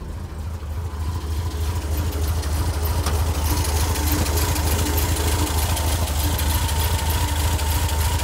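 Porsche 356 B's air-cooled 1582 cc flat-four boxer engine idling steadily. It grows louder over the first couple of seconds and then holds an even level.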